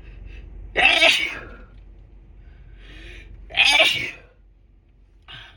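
Two sneezes from a person with a head cold, about three seconds apart, the second preceded by a short rising intake of breath.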